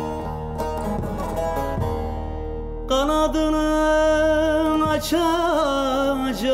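A song in Turkish: a plucked string instrument plays alone, then about three seconds in a voice comes in, singing a long held note that wavers and slides over the accompaniment.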